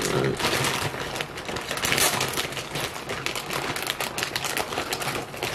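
Plastic packaging crinkling and rustling in the hands as a shipped package is opened.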